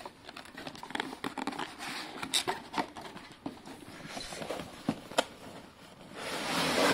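Cardboard graphics-card box being handled: scattered scrapes, rustles and light knocks, with a longer sliding scrape near the end.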